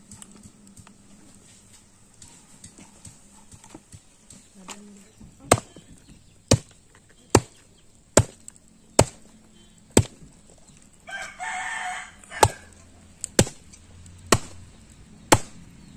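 Chicken meat being chopped on a wooden block, about ten sharp chops roughly a second apart, starting about a third of the way in. About halfway through, between the chops, comes a noisy sound about a second long.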